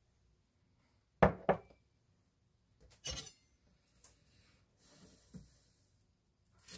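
Kitchen handling sounds at a wooden cutting board: two sharp knocks about a second in, a brighter clattering clink around three seconds, then a few softer taps and a click.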